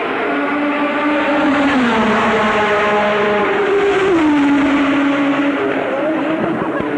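1984 Formula 1 race car engine running at high revs. The engine note drops about two seconds in, climbs again, and drops once more about four seconds in, as the car slows and speeds up.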